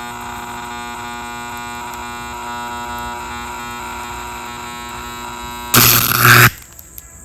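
Vacuum cleaner motor running with a steady electric hum. About six seconds in, a loud rushing burst lasts under a second, after which the hum carries on more quietly.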